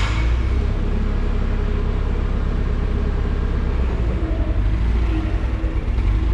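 Nissan forklift's engine idling steadily, a low even rumble.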